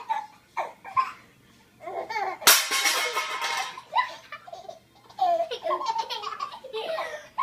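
Baby laughing in short bursts of giggles, with a loud noisy burst about two and a half seconds in that lasts about a second.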